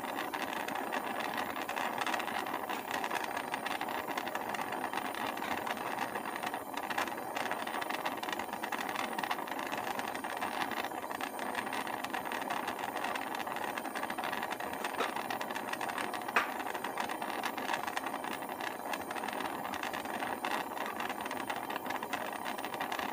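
Gas torch flame burning with a steady hiss, heating an enamel-coated copper piece from below while the enamel fuses. A single sharp click about 16 seconds in.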